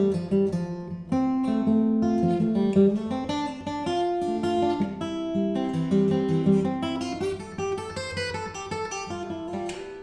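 Solo steel-string acoustic guitar playing an instrumental passage: chords and a moving line of notes, each plucked note sharp at its start.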